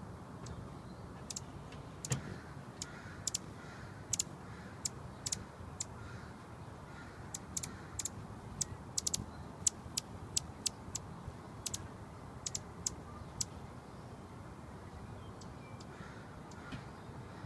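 Anna's hummingbird giving sharp, high chip calls: many short ticks at an uneven pace, some in quick pairs, thinning out near the end, over a steady low traffic rumble.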